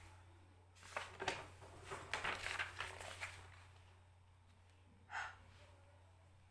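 Quiet room tone with a steady low hum. Faint murmurs and clicks come in the first few seconds, and a short breath about five seconds in.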